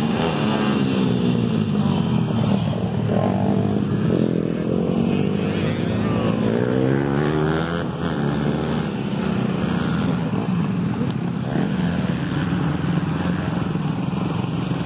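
Several dirt bikes running together, their engine notes rising and falling as the riders open and close the throttle.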